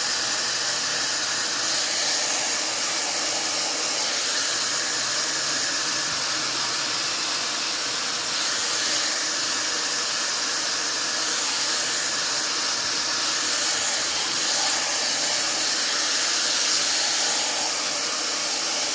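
Fentgo ionic hair dryer with a diffuser attached, running steadily on its medium heat setting: an even, unbroken rush of air with a fan hum beneath it.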